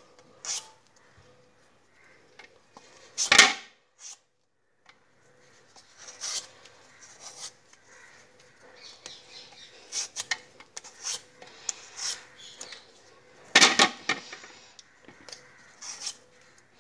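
Hand-held vegetable peeler scraping the skin off a raw potato in short, irregular strokes, with a louder rasp about three seconds in and another near the end.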